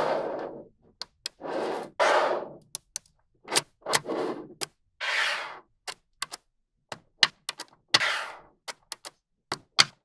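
Small neodymium magnetic balls snapping together with sharp, irregular clicks, between short rattling swishes as strings of balls slide and roll against each other.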